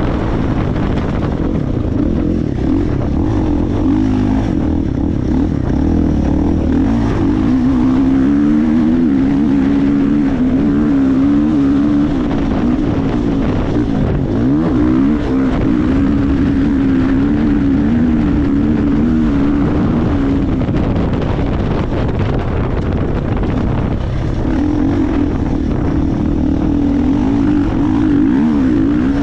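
Dirt bike engine running under load as it is ridden, the revs rising and falling continually with throttle and gear changes, over a steady rush of wind on the microphone.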